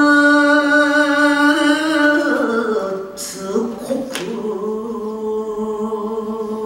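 Japanese shigin poetry chanting: a single voice holds long, steady notes, stepping down in pitch a little over two seconds in. Two short sharp clicks sound about three and four seconds in.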